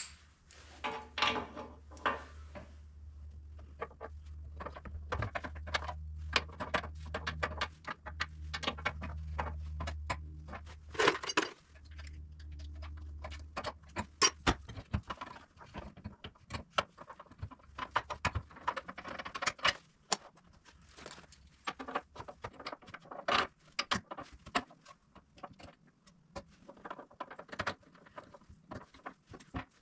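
Socket wrench on a long extension ratcheting and clinking against metal while winch mounting bolts are tightened: irregular sharp clicks and clinks throughout. A steady low hum lies underneath and stops about halfway through.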